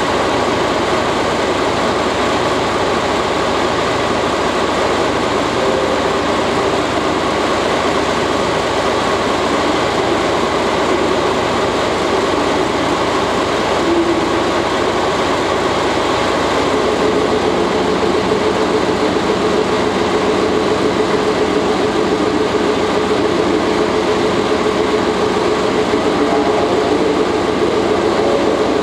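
DE10 diesel-hydraulic locomotive standing with its engine idling, a steady drone. About halfway through, a steady hum joins in and holds.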